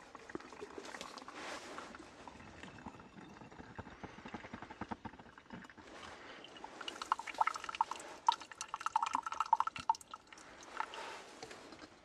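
Coffee being pressed by hand through a plunger coffee press, with liquid trickling into the cup. From about seven to ten seconds in comes a dense run of crackling, squeaky sputters.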